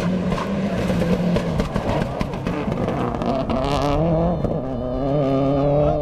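Subaru WRX STI rally car's turbocharged flat-four engine at full throttle on a gravel stage, approaching and passing: the engine note climbs, drops about four and a half seconds in, then holds lower. Sharp cracks run through it.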